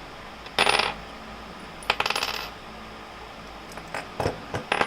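Metal parts of a clamp mount clinking and rattling as they are handled: a ringing clink about half a second in, a short rapid rattle about two seconds in, and several small clinks near the end.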